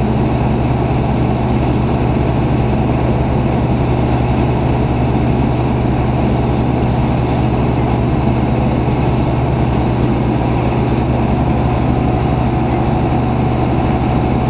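Fire company squad truck's engine idling, heard from inside its cab as a steady low drone.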